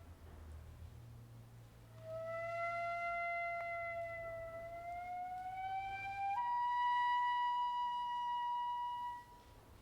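A single traditional Japanese wind instrument plays a slow Kibigaku line of long held notes. It enters about two seconds in, slides gradually upward in pitch, steps up to a higher sustained note about six seconds in and stops near the end. A low hum runs underneath.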